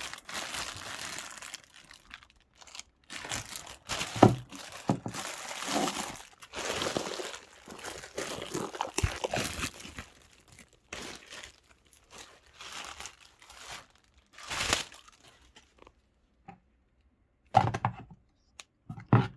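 Packaging being crinkled and rustled as items are dug out of a cardboard box. The rustling runs almost without a break for the first ten seconds or so, then comes in shorter bursts, with a few sharp knocks among it.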